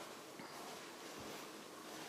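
Quiet room hiss with a few soft, low thuds about half a second and just over a second in, like the footsteps of someone walking slowly across the floor while filming.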